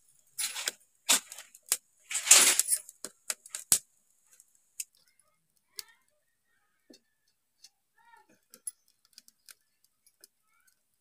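Dry twigs being handled and pushed into a wood-fired clay chulha: a run of sharp clicks and a louder scraping rustle in the first few seconds, then sparse faint crackling ticks from the burning wood.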